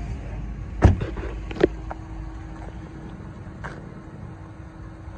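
Door of a 2013 Dodge Ram 1500 crew cab pickup shut with a loud, heavy thud about a second in, then a second, sharper knock just after, over a steady low background noise.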